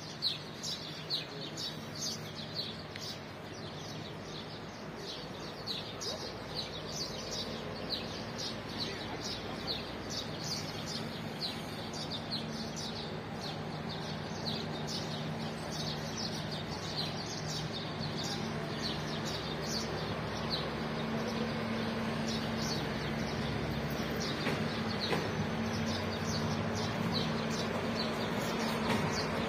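Small birds chirping in many quick, short notes throughout. Under them is the low, steady drone of the express train's diesel locomotive, which grows gradually louder as the train approaches and passes.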